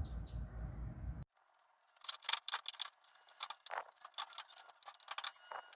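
Low room hum, then after an abrupt cut about a second in, a run of light metallic clicks and rattles, thin-sounding with no low end, as metal tools and parts are handled.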